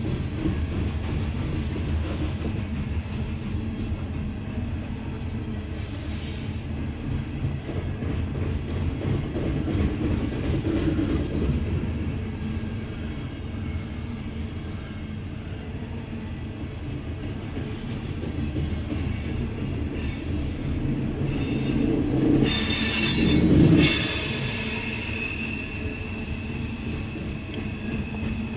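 Loaded CSX coal train rolling past: a steady low rumble of wheels on rail. About 22 seconds in, high-pitched wheel squeal rises, peaks briefly, then lingers faintly.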